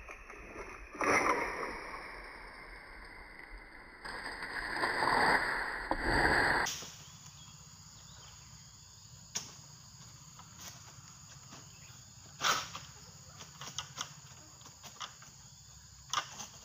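Oil palm fronds rustling and crashing as a long-pole harvesting sickle cuts into the crown, then scattered sharp knocks and snaps from the pole working in the fronds, over steady insect chirring.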